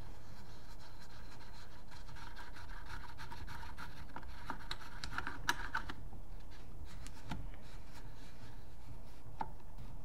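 Faint scratching and a few small clicks from hands fitting parts onto the body of a Dye Assault Matrix (DAM) paintball gun, most of the clicks about halfway through, over a steady low background hum.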